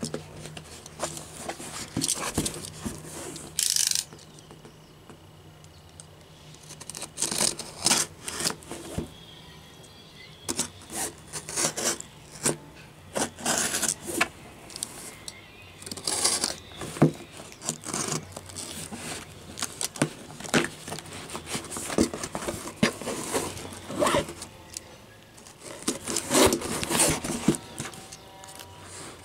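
A cardboard box being handled and its packing tape cut with a snap-off utility knife: an irregular run of scrapes, rustles, clicks and short tearing sounds as the blade slits the tape and the tape is pulled away.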